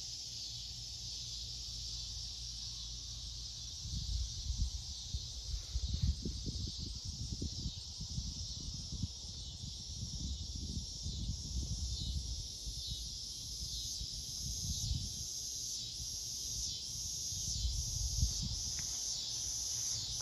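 Insects calling in a steady high-pitched chorus, joined from about halfway in by a second high call pulsing a little over once a second. Low wind rumble on the microphone comes and goes.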